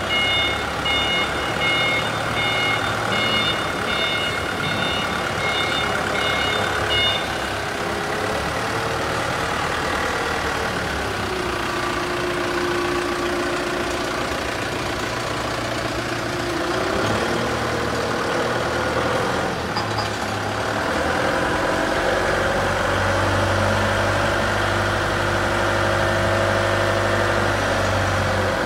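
ACE AF30D forklift running, its reversing alarm beeping rapidly for the first seven seconds or so. Later a steady whine from the hydraulics comes in over the engine, in a stretch in the middle and again through the last several seconds, as the paper roll clamp is worked.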